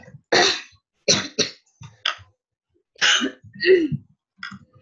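A person coughing repeatedly, about six hard coughs in a little under four seconds, with faint computer keyboard clicks between them.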